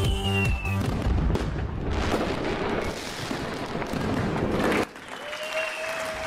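The song's last chord cuts off about a second in, followed by steady applause and cheering. The applause drops to a quieter level near the end, with a thin held high tone.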